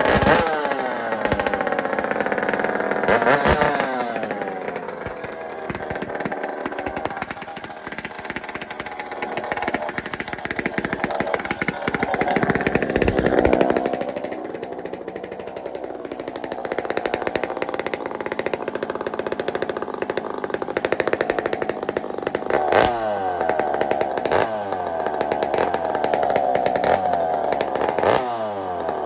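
Two-stroke chainsaw with an aftermarket muffler, revved up and down several times. The engine note climbs to a high scream and falls back, as it is brought up slowly until it cleans up at full throttle.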